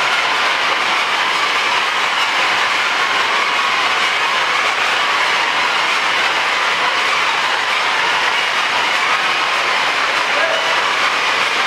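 Disposable-glove production line running: the chain conveyor carrying rows of hand-shaped glove formers gives a loud, steady mechanical noise.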